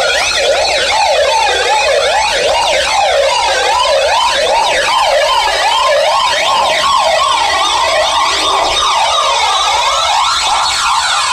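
Tekno track in a breakdown, played from vinyl over a sound system: a siren-like synth wails rapidly up and down, about twice a second, with higher layers sweeping along with it and no kick drum.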